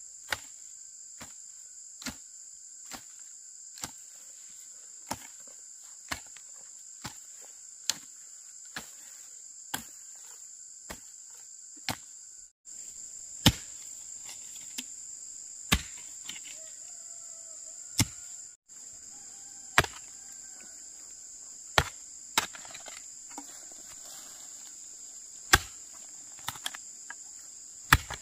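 Steady high-pitched insect chorus, overlaid by sharp knocks about once a second from a tool striking, as in chopping or hammering. The knocks are the loudest sound.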